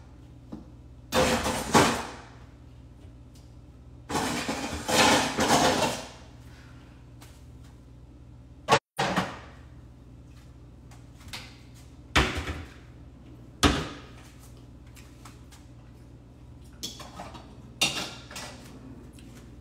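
Kitchen handling noises at a stove: two longer scraping, rustling bursts in the first six seconds, then several separate knocks and clunks of cabinet doors and cookware.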